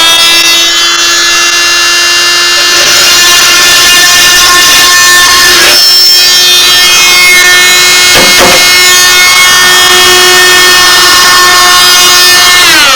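Handheld electric power tool motor spinning up to a steady high whine and running at full speed throughout, with brief knocks about six and eight and a half seconds in, then winding down at the end.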